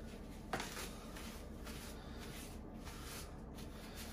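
Soft rubbing and handling sounds of a towel wiping a wet hair clipper dry, with one brief click about half a second in.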